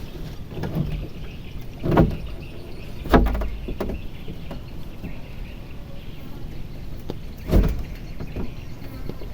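Three sharp knocks, as of things bumped or set down in a small wooden river boat, over a steady low rumble.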